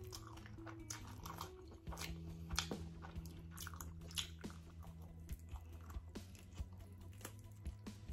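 Close-up mouth sounds of someone biting and chewing barbecued chicken leg meat pulled off the bone, with many small crisp clicks and crunches spread through the chewing.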